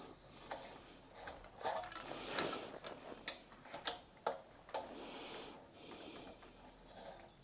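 Irregular small clicks, taps and scrapes of plumbing fittings being handled and screwed together, with a louder rustling scrape about two seconds in.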